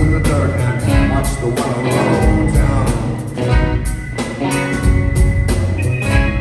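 A rock band playing live, with no vocal: a steady drum beat over a heavy bass line, with a high note held throughout.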